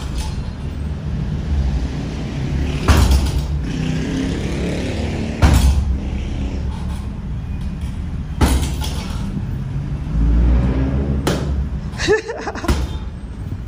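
Strikes landing on a heavy punching bag: a sharp thud every two to three seconds, about six in all, over a steady low hum.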